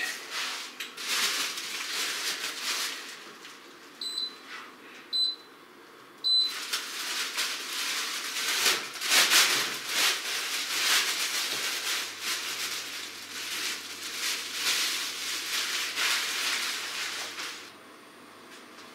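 A plastic bag rustling and crackling as loose snow is shaken out of it into a large stainless steel pot. Just before the pouring come three short electronic beeps, one about every second, from the induction hob's touch controls.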